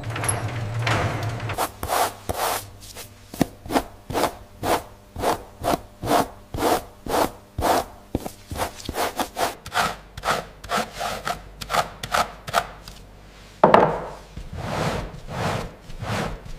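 Stiff bristle brush scrubbing the rind of an aged cheese wheel in quick, even back-and-forth strokes, about three a second, brushing off unwanted mold. A low steady hum comes before the strokes begin, and one louder scrape comes near the end.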